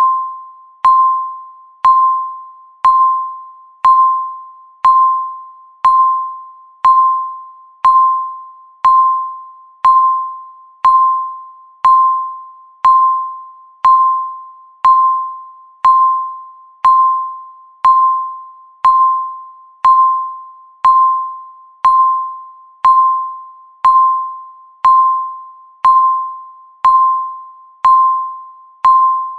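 Countdown timer beeping once a second: a single pitched electronic beep with a sharp start that dies away before the next one.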